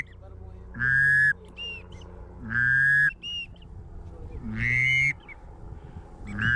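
A hunter's duck call being blown at circling ducks: four long, loud calls about two seconds apart, each followed by a short, high whistle note.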